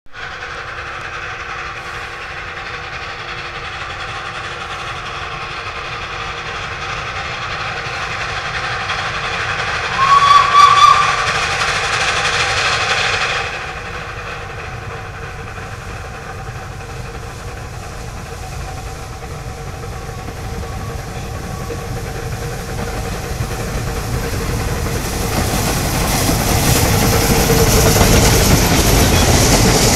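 Kerr Stuart 'Joffre' narrow-gauge steam tank locomotive working a train, heard from afar at first. Its whistle sounds once, for about three seconds, about a third of the way in and stops sharply. The train's running sound then grows steadily louder as the locomotive and its coaches pass on the rails, loudest near the end.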